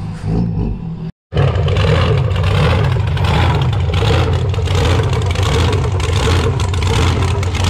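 A vehicle engine running loud and steady, cutting in after a brief drop to silence about a second in.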